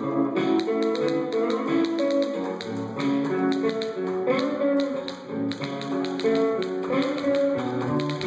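Instrumental music: a plucked-string melody over many quick, sharp clicks and taps.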